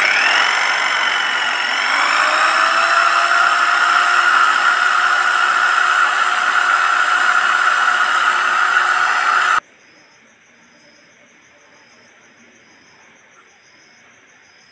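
Golden Bullet 750-watt electric drill running and boring into a wooden plank with a wide bit: a steady motor whine whose pitch rises slightly about two seconds in. It cuts off suddenly near ten seconds, leaving a faint steady hum.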